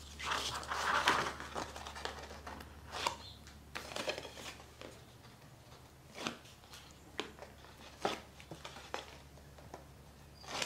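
Sheets of cardstock being handled, folded and pressed together: rustling, scraping and light taps of paper. The longest and loudest rustle comes in the first second and a half.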